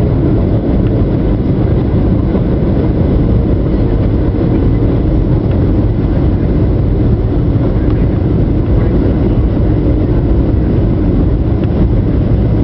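Steady cabin noise of a Boeing 737 on approach: its turbofan engine and the rushing airflow, heard inside the cabin from a window seat beside the engine, low and even throughout.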